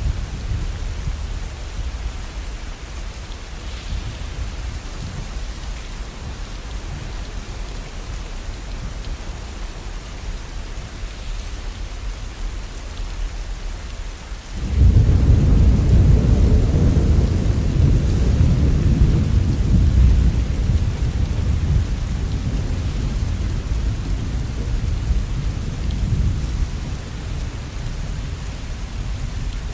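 Steady rain, with a sudden deep rumble of thunder about halfway through that rolls on for several seconds and slowly fades under the rain.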